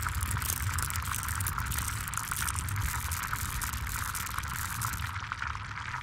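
Steady crackling sizzle and bubbling, like food frying in a hot pan, over a low steady rumble. It is a cooking sound effect laid over the ladle of magnetic balls on the gas burner.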